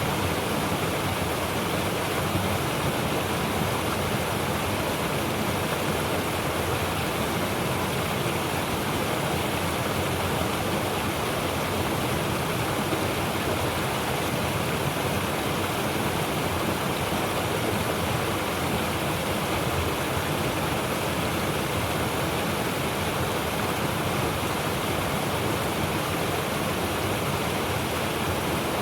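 Mountain river water rushing steadily over rocks, a continuous full rush with a deep bass rumble underneath.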